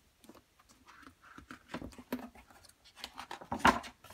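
A page of a large picture book being turned by hand and pressed flat: paper rustling with soft scattered clicks, the loudest rustle near the end.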